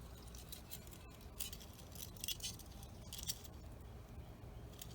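Faint light metallic clicks and scrapes of thin carburetor jet-cleaning rods being handled and sorted, a few scattered through the stretch.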